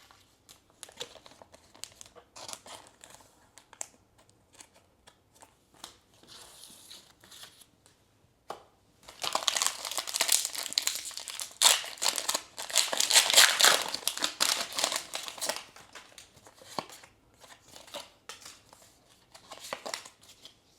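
Foil booster-pack wrapper crinkling and being torn open, densest and loudest for about seven seconds in the middle, with scattered light ticks and rustles before and after.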